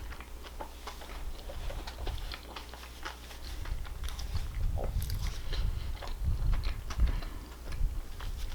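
A person biting and chewing a mouthful of food, with many small wet mouth clicks. The low thumps of chewing grow stronger about halfway through.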